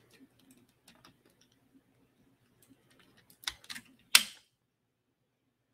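Taps and clicks of a smartphone being handled and tapped: faint scattered clicks at first, then a short cluster of sharper clicks past halfway and one loud knock about four seconds in.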